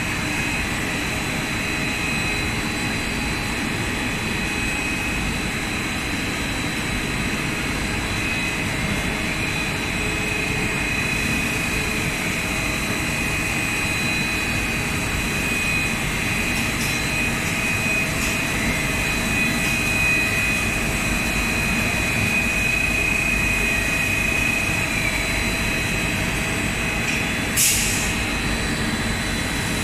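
ABS sheet extrusion line running: a steady machine hum overlaid with several high, steady whines, and one sharp click near the end.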